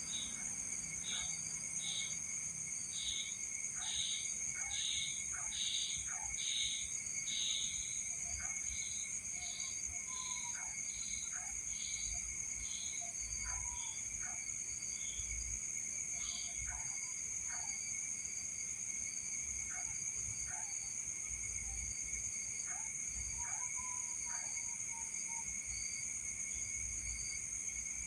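Night insect chorus: several crickets or similar insects trilling steadily at different pitches. Over it, a slower repeated chirp comes about once a second for the first eight seconds or so, then thins out, with scattered short calls and clicks throughout.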